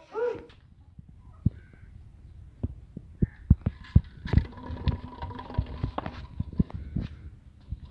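A brief voice at the start, then a run of irregular dull thumps and knocks, a few of them sharp. A faint steady hum runs through the middle.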